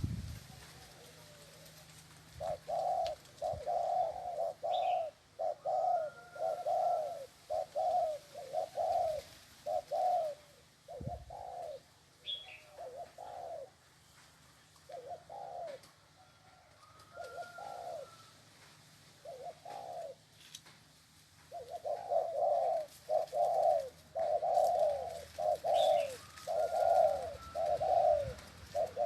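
Spotted dove cooing in long runs of short, low coo notes, roughly one to two a second, with a sparser stretch in the middle. A few faint high chirps from another bird are also heard.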